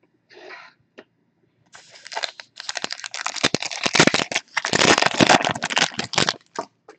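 Trading-card pack wrapper crinkling and tearing as a pack is ripped open: a brief rustle, then from about two seconds in a dense crackle lasting some five seconds.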